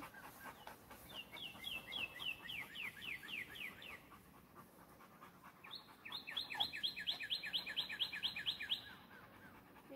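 A songbird singing twice, each song a quick run of about fifteen downslurred whistled notes lasting roughly three seconds, the first about a second in and the second about six seconds in.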